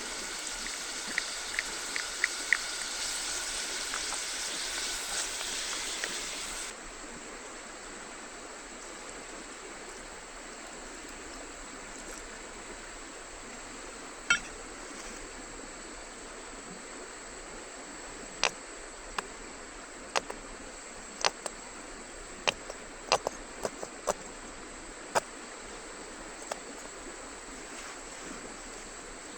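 River water flowing steadily. A louder stretch with a steady high tone and a few clicks cuts off abruptly about 7 s in. After that, scattered sharp clicks sound over the water in the second half.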